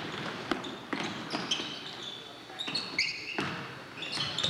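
Basketball bouncing on a gym floor during play: irregular sharp knocks, with short high-pitched sneaker squeaks about one and a half seconds and three seconds in.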